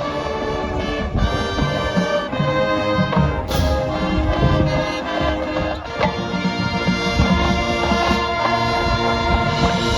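High school marching band playing, with the brass section carrying sustained chords over drumline percussion, recorded live in the open air.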